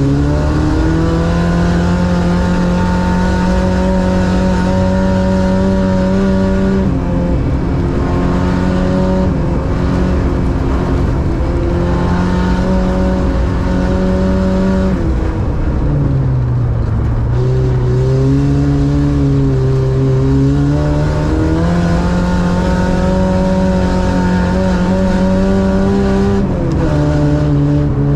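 A racing car's engine running hard at high revs, heard from inside the car. Its pitch holds steady, then drops and climbs back several times as the driver lifts off or shifts, with the deepest dip about halfway through.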